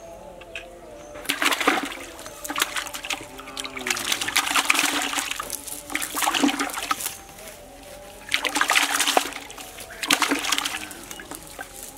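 Live fish thrashing in a plastic bucket of water, splashing in about six short bouts with quieter stretches between.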